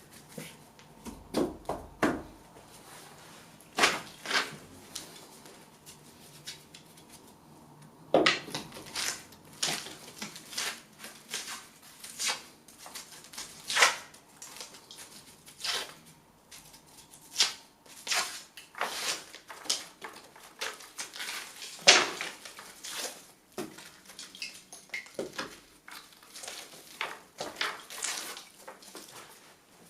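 Irregular knocks, cracks and scrapes of a nailed wooden picture rail being levered off a plaster wall with a hand tool, with one sharp crack standing out about two-thirds of the way through.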